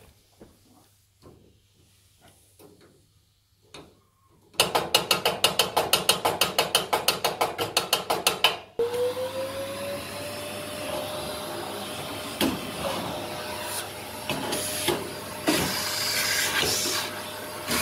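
A wire brush is scrubbed fast back and forth along a gas fire's burner, about nine strokes a second. Just under halfway through, a vacuum cleaner starts, its motor tone rising and then holding steady as it sucks dust out of the fire, with a few knocks from the nozzle.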